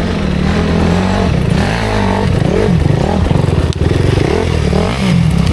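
250cc enduro dirt bike engine revving, its pitch rising and falling several times, with some clatter.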